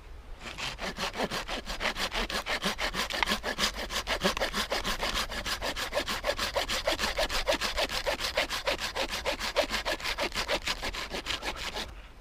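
Silky folding hand saw cutting through wood in rapid, even strokes, starting about half a second in and stopping shortly before the end.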